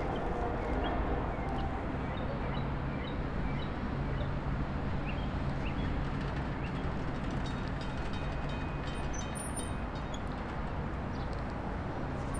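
Norfolk Southern train rolling past, a steady rumble of rail cars on the track with a faint low hum.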